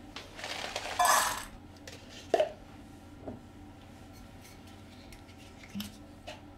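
Kitchen crockery being handled on a counter: a short rustling rush about a second in, then a sharp clink of a bowl with a brief ring, followed by a few lighter knocks and clicks.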